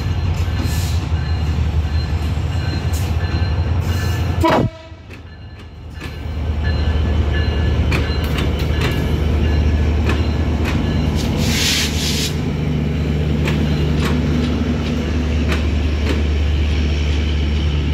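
EMD GT-series diesel-electric locomotive passing close by with its engine running, followed by a long rake of LHB passenger coaches rumbling past with steady clicking over the rail joints. About four and a half seconds in, a brief falling tone is followed by a sudden drop in loudness for about a second and a half before the rumble returns. A short burst of high hiss comes near the middle.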